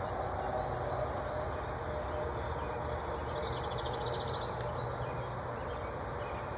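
Engine idling steadily as a low rumble, with a short rapid bird trill about three and a half seconds in.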